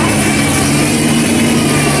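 1957 Chevrolet Bel Air's engine running at low speed with a steady, low exhaust note as the car rolls slowly past.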